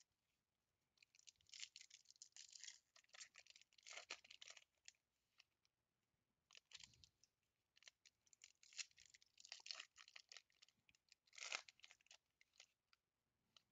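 Faint crinkling and tearing of a 2020 Bowman baseball card pack wrapper as it is torn open by hand and the cards are pulled out, in two stretches of irregular crackle with a short pause between.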